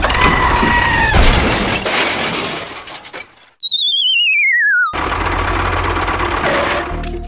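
Edited sound effects: a short steady whistle tone over a noisy hiss, then a warbling whistle that glides down in pitch for about a second and cuts off abruptly, followed by more hiss.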